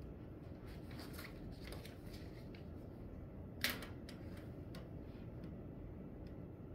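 Quiet classroom background: a steady low room hum with faint scattered rustles and small clicks, and one sharper click about halfway through.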